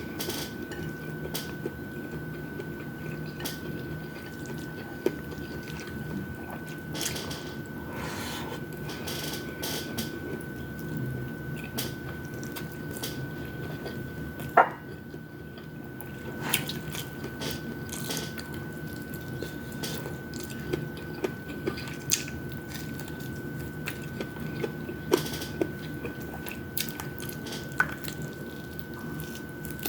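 Close-up eating sounds of fried chicken wings and rice: wet chewing and mouth noises with scattered small clicks, over a steady faint high-pitched tone. About halfway through comes one sharper ringing clink, the loudest sound.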